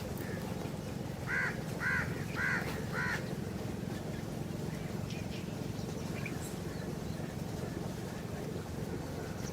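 An animal giving four short calls in quick, even succession a little over a second in, over a steady low background noise.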